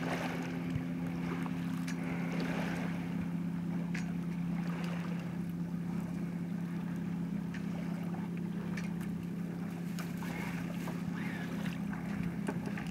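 Water washing along the hull of a Sunwind 26 sailboat sailing slowly downwind, over a steady low hum, with a few faint ticks.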